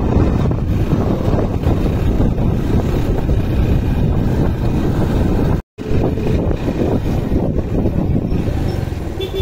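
Motorcycle running on the move, its engine mixed with heavy wind noise on the microphone. The sound drops out for a moment a little past halfway.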